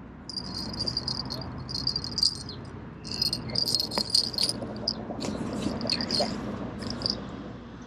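Small bell clipped to a fishing rod tip jingling in irregular bursts as the rod tip is tugged. This is the sound of a bite alarm going off, though it may be only a nibble, current or handling.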